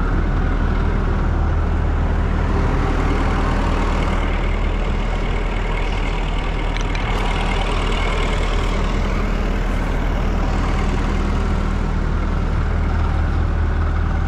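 Massey Ferguson 86 combine harvester running steadily: a constant low engine drone with a dense wash of mechanical noise over it.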